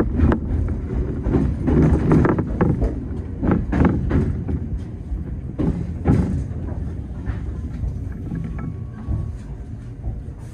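Electric train rolling slowly into a station siding: a low rumble with irregular clacks of the wheels over the points and rail joints, fading toward the end.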